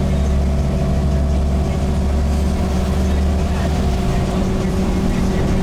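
Volvo B7TL bus's six-cylinder diesel engine running steadily, heard from on board. The deepest part of its drone drops away about four seconds in.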